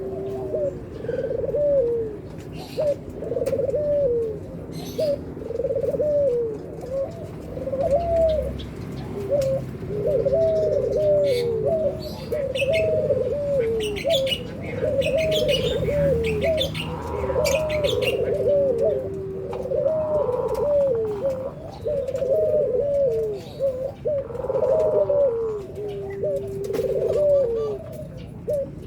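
White (albino) ringneck doves (puter) cooing over and over, one rolling coo after another about every second. Faint higher chirps sound in between.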